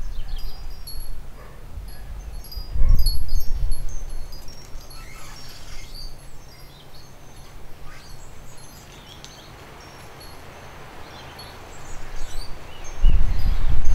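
Light, irregular tinkling of garden wind chimes, with wind buffeting the microphone as a low rumble about three seconds in and again near the end.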